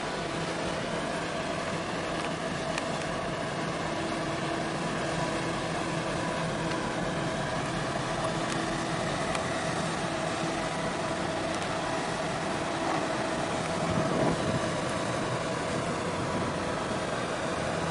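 Steady engine drone from the harbour vessels, several humming tones over a wash of water and wind noise, swelling briefly about fourteen seconds in.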